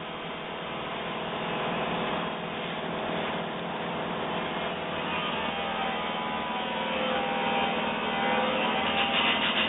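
Lapidary ultrasonic drill machine running with a steady hum and whine, with a few wavering tones sliding in pitch around the middle. Near the end a louder, rapidly pulsing rough rubbing sound sets in.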